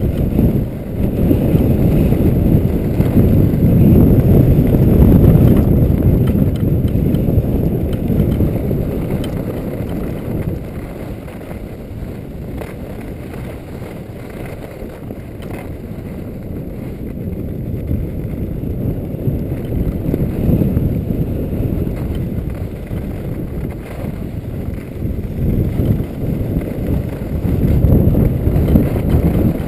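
Wind rushing over the microphone of a camera worn by a skier moving fast downhill, a low rumbling noise. It swells in the first few seconds, eases off in the middle, and builds again near the end.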